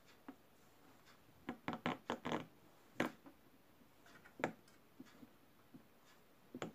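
Handling noise from a plastic scale model airliner on its plastic stand: a quick run of light clicks and taps about two seconds in, then a sharp single click about a second later and another near the middle.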